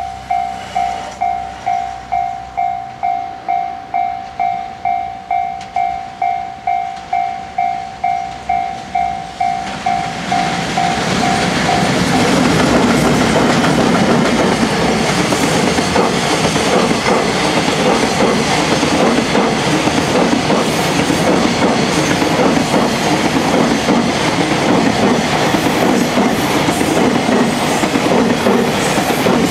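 Japanese level-crossing warning bell ringing, a steady electronic ding about twice a second. From about ten seconds in, a container freight train hauled by EF210 electric locomotives passes close by, its wheels rumbling and clacking over the rails, and the bell is lost under it.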